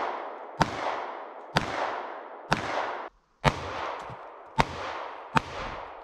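A 9mm semi-automatic pistol firing six shots at a steady pace, about one a second, each sharp crack followed by a long echo that dies away before the next.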